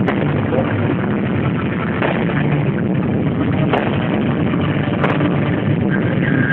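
Fireworks going off: several sharp bangs a second or two apart over a steady, loud rumble.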